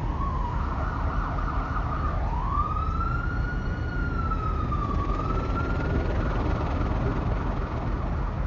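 An emergency vehicle's siren wailing, its pitch sliding slowly up and down, over the steady low rumble of city traffic.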